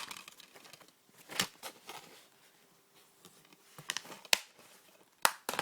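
Plastic DVD cases being handled: several sharp clicks and knocks, a few of them close together near the end, with light rustling between.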